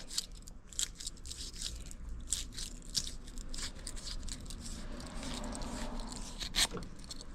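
Flame sensor cleaner tool scraping along a furnace flame sensor rod in quick, irregular strokes, rubbing the buildup off the metal rod.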